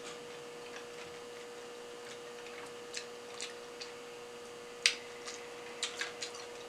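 Faint, scattered wet clicks of someone chewing sushi close to the microphone, the loudest about five seconds in and a quick cluster near the end, over a steady faint hum.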